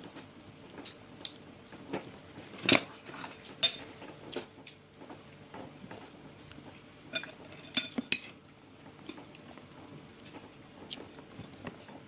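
Metal fork clinking against a plate while eating: about ten short, sharp clinks at irregular intervals, the loudest a few seconds in.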